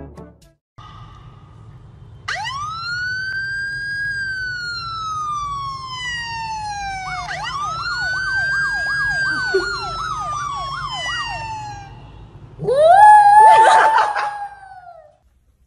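A police-style siren sound wailing slowly up and down, then switching to a fast yelp, and a small white curly-coated dog howling loudly along with it near the end.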